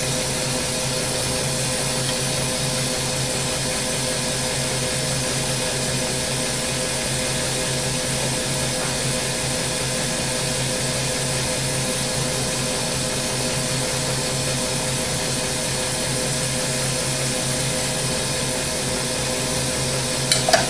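Hydrogen-oxygen torch flame hissing steadily on a quartz tube turning in a glassworking lathe, over a steady machine hum. A few small clicks come just before the end.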